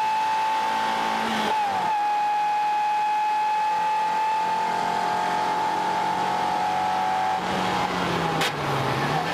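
Stock four-cylinder engine of a 1997 Mazda Miata heard from inside the cabin, running hard at high revs on track, with a short break in the note about a second and a half in. About seven and a half seconds in the throttle is lifted and the engine note drops to a lower, wavering pitch.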